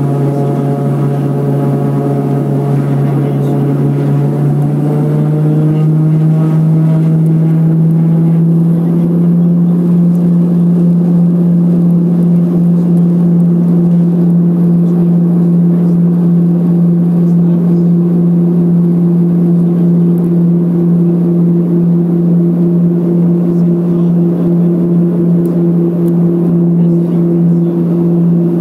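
Let L-410 UVP-E20 twin turboprop heard from inside the cabin at takeoff power on the takeoff roll. The loud engine and propeller drone rises in pitch over the first several seconds as the aircraft accelerates, then holds at a steady high pitch.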